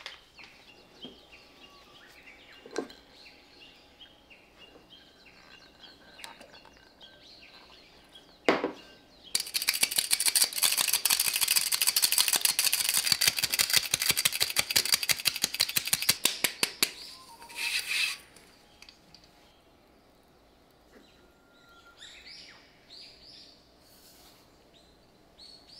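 Cake flour being sifted: a metal mesh sieve shaken rapidly over a glass bowl, making a fast, dense rattle. It starts about nine seconds in and lasts about seven seconds, and a short final shake follows a second later.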